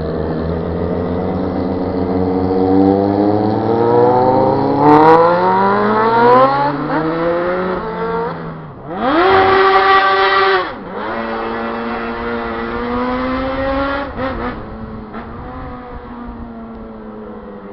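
Sport motorcycle engines revving under acceleration. The pitch climbs steadily for about eight seconds and dips, then comes a loud, high-revving stretch from about nine to eleven seconds. A lower, steadier engine note follows and fades near the end.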